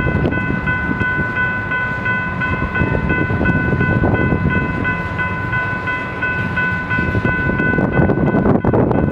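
Loaded tank cars of a freight train rumbling and clattering past on the rails, with a steady high ringing tone over them that repeats in quick regular strokes, like a grade-crossing warning bell.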